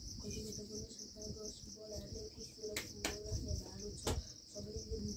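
Insects chirping in a steady, pulsing high trill, with a few sharp knocks about three and four seconds in.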